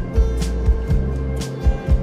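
Background music with a steady drum beat: low kick-drum thumps, a sharper hit about once a second, and held bass notes.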